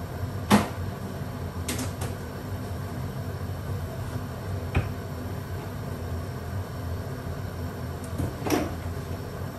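A few knocks and clunks of kitchen items being handled, the loudest about half a second in, a pair near two seconds, a click near five and another clunk near eight and a half seconds, over a steady low hum.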